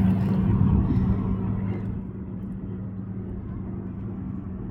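An engine running with a steady low hum over a rumbling background, getting quieter about two seconds in.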